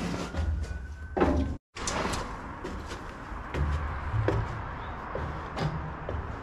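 Footsteps and knocks on metal stair treads and a concrete floor, with irregular dull thuds and scattered sharp clicks while someone climbs up into a dome.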